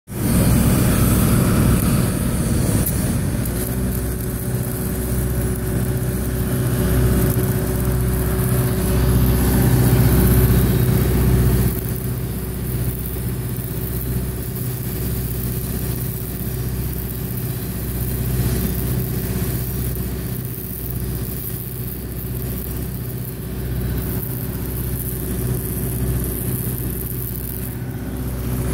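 Shielded metal arc (stick) welding on an 8-inch schedule 40 steel pipe in the 5G position, with a 3.2 mm electrode on DC electrode positive: the arc crackles and hisses over the steady drone of an engine, which is a little louder in the first dozen seconds.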